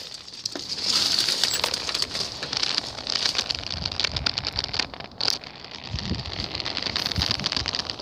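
Dry leaves, twigs and vines crackling and crunching as someone pushes through brush on foot, with a few dull footstep thumps in the second half.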